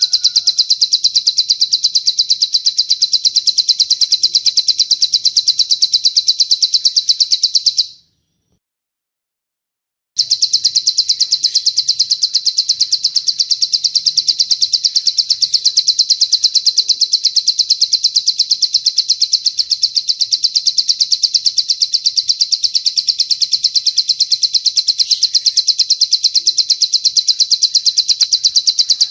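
Recorded cililin bird song: a long, high-pitched trill of very rapidly repeated notes at an even pace and level. It stops dead for about two seconds some eight seconds in, then resumes unchanged.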